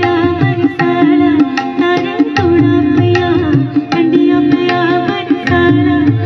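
Live Indian music played by a small acoustic group: tabla strokes keep a quick rhythm under acoustic guitar and a woman's sung melody, over a held low note.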